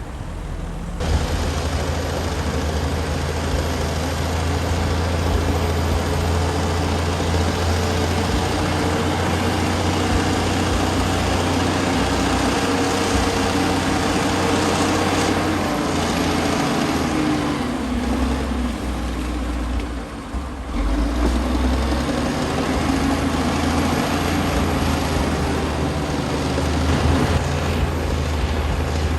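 Komatsu D60P bulldozer's diesel engine running under load, a steady heavy drone. It grows louder about a second in, eases off for a few seconds about two-thirds of the way through, then picks up again.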